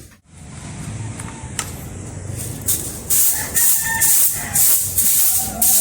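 Walis tingting (a stiff broom of coconut-leaf midribs) sweeping leftover feed from a pig feeding area, in brisk swishing strokes that start a few seconds in, about two a second.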